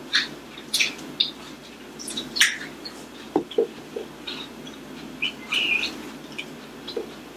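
Close-miked eating sounds: a person biting into and chewing a lobster roll, with irregular wet mouth clicks and lip smacks. A few soft low knocks come about halfway through.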